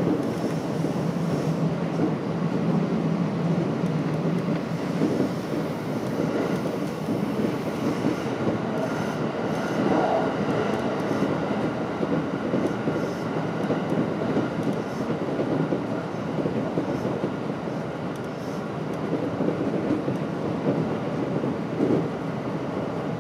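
JR West 227 series electric train running on the line, a steady rumble of wheels on rail heard from inside the train.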